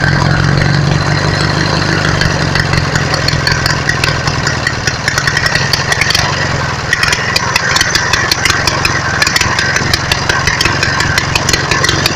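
Riding lawn mower engine running steadily at idle, heard close up in the engine bay. From about seven seconds in, rapid irregular clicks sound over the engine.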